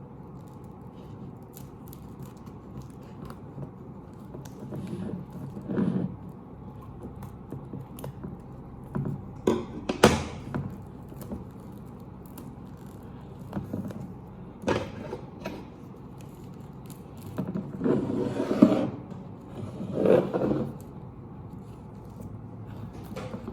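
Packaging being unwrapped by hand: irregular scrapes, rustles and clicks, with a few louder bursts, the strongest about ten seconds in and a cluster toward the end.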